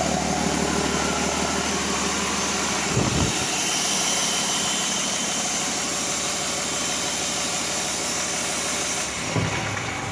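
2009 Cummins ISB 6.7-litre inline-six turbodiesel running steadily on an engine test stand, with a brief low thump about three seconds in and another near the end.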